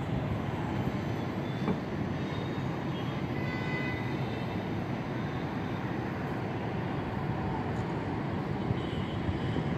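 Steady urban background noise: the low rumble of city traffic below, with no distinct event standing out.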